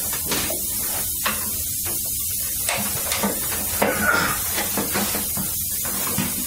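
A heavy cast tractor cover being handled makes a few light metallic clinks and knocks, with a brief scraping clatter about four seconds in. A steady hiss runs underneath.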